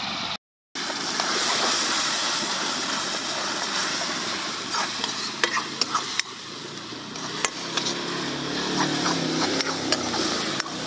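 Onion-tomato masala sizzling in a black wok (kadai) over a wood fire, with a steel ladle scraping and clinking against the pan as it is stirred. The sound drops out briefly just after the start.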